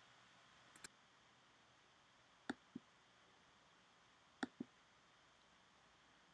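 Computer mouse clicking over near-silent room tone. There is one faint click about a second in, then two pairs of quick clicks about two seconds apart.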